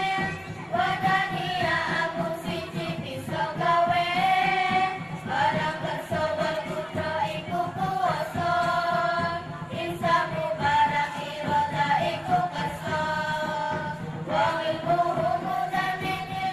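A group of children singing together in unison, in long, drawn-out high phrases with no breaks.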